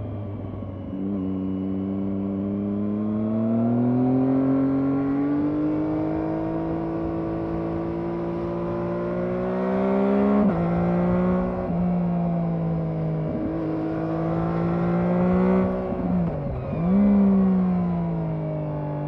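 Triumph Daytona 675R's stock-exhausted 675 cc three-cylinder engine on the move. The revs jump about a second in, then climb steadily; just past halfway the pitch drops sharply three times in quick succession as it shifts up. Near the end the revs dip and then jump up in a quick blip before falling away.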